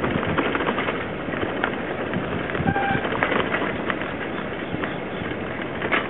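Wild birds calling in woodland: short chirps and a few brief whistled notes over a steady rustling background noise.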